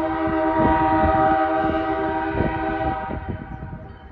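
Distant diesel locomotive air horn, the CSX SD40 leading the freight, sounding one long multi-tone blast for a road crossing. It holds steady and cuts off about three seconds in.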